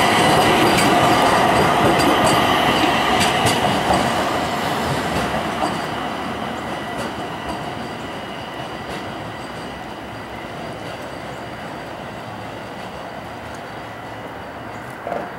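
A light rail car passing close by on jointed street track and running away, its wheels clacking over the rail joints with a steady high whine; the sound is loud at first and fades over the first several seconds.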